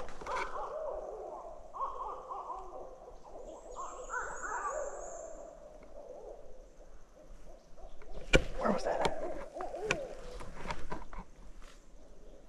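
Owl hooting in two long runs of wavering hoots with a pause between, plus one sharp click about eight seconds in.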